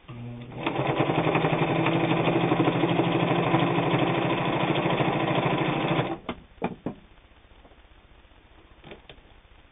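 New Home Type H friction-drive sewing machine running at a steady speed for about five and a half seconds, stitching through eight layers of heavy denim. It stops abruptly about six seconds in, followed by a couple of sharp clicks.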